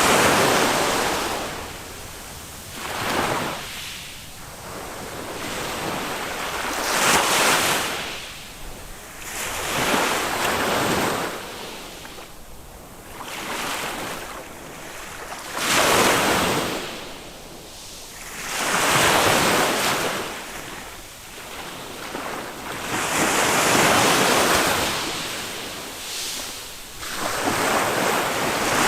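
Small waves of a calm Mediterranean sea breaking and washing up a sand beach. The noise swells and falls back with each wave, about every three to four seconds.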